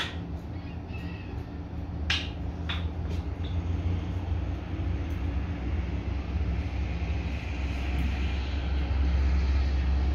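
A low, steady rumble that grows louder in the second half, with a few sharp snips of barber's scissors cutting hair in the first few seconds.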